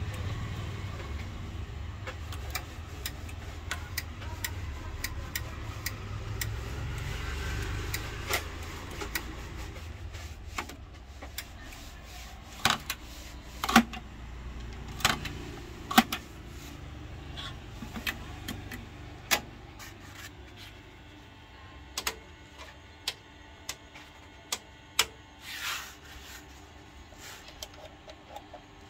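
Irregular sharp clicks of the switches and push-keys on an Akai cassette deck and AM-U03 amplifier being operated one at a time, over a low rumble that fades after about ten seconds.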